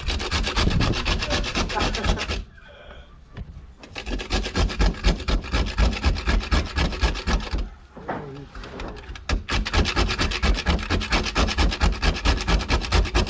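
Hand-twisted spice grinder grinding, a quick rhythmic rasping of about five strokes a second, stopping twice briefly before starting again.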